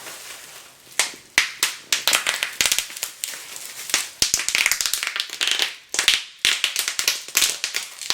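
Packaging being handled and unwrapped, crinkling and crackling, with many sharp irregular clicks and taps.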